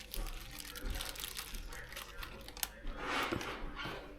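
Irregular crinkling and rustling as fish pieces are tossed in dry fish-fry breading mix, with a few small knocks and a louder stretch about three seconds in.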